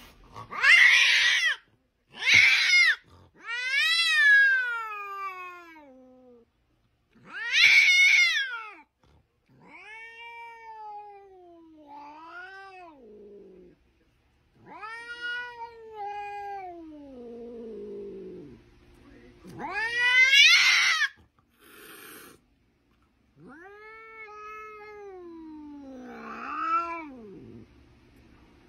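A domestic cat meowing and yowling over and over, about a dozen calls. Several are long and drawn out, falling in pitch, and a few are short, loud and harsh.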